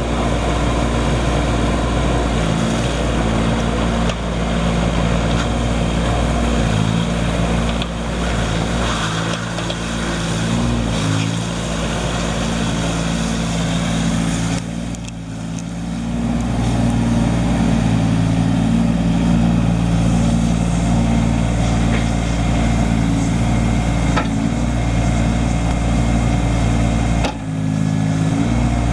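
Diesel engine of a 2012 Caterpillar 301.4C mini excavator running steadily, its note shifting several times through the clip.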